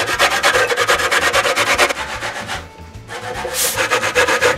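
Raw green plantain being grated on the fine side of a stainless-steel box grater: quick, even scraping strokes, about seven a second, with a brief pause a little past halfway.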